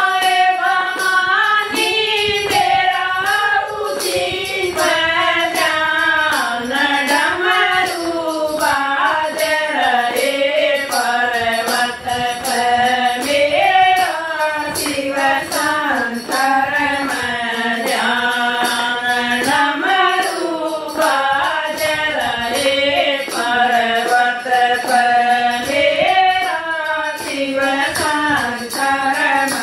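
A group of women singing a devotional bhajan in unison, with clapping and jingling hand percussion keeping a steady beat.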